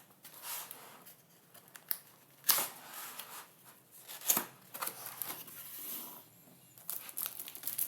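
A package being opened by hand: intermittent rustling of packaging with a few sharp snaps, two of them louder, about two and a half and four seconds in.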